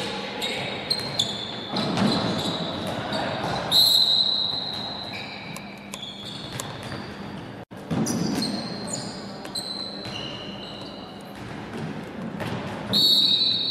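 A handball bouncing on a wooden sports-hall floor amid short high squeaks and players' voices, all echoing around the hall. The sound drops out for an instant about halfway through.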